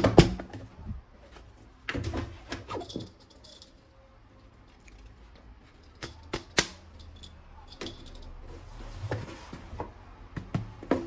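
Plastic toy guns and parts being handled: scattered sharp clicks and knocks, with a cluster about two seconds in and another about six seconds in.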